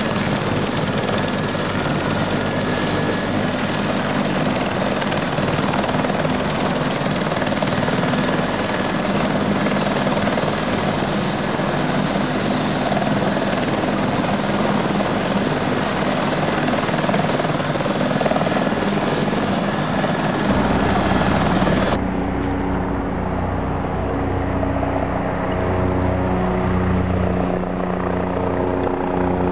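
Police helicopter on its pad with turbine engines and main rotor running at close range: a loud, steady rushing noise. About two-thirds of the way through it cuts abruptly to a helicopter flying far off, losing the hiss and leaving a steady low hum with a few held engine tones.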